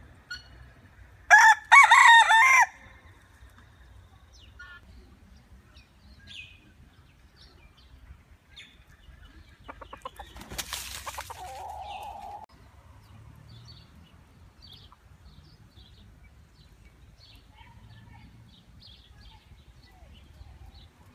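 A rooster crows loudly about a second in, one cock-a-doodle-doo lasting just over a second. Near the middle comes a quieter rustling burst followed by a short, lower call, and faint small-bird chirps are scattered throughout.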